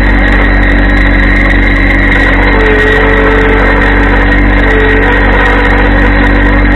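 Yanmar compact diesel tractor engine running steadily, with a higher whine that rises and fades twice.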